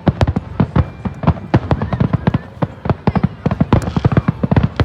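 Fireworks going off in a rapid string of sharp bangs and cracks, several a second, without a break.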